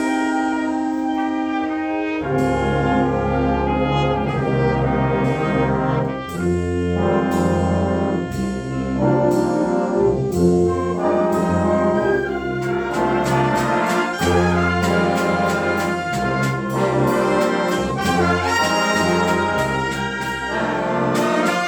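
Live band with prominent brass, trumpets and trombones over a heavy low brass line, playing a concert piece: a held chord, then a loud rhythmic passage with regular accented chords and quick repeated notes near the end.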